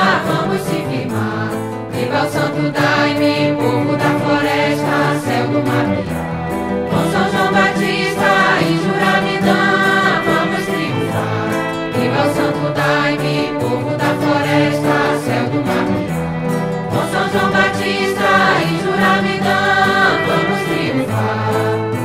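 Group of voices singing a Santo Daime hymn in Portuguese, phrase after phrase over sustained backing notes.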